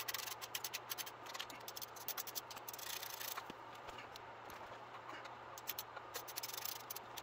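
Hand ratchet clicking in quick runs as the oil pan fasteners are run down by hand, with short pauses between runs.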